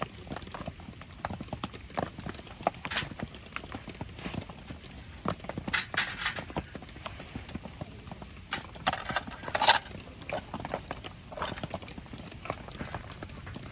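Campfire in the rain: dense small ticks and pops, with a few louder crackling bursts about three, six and nine to ten seconds in.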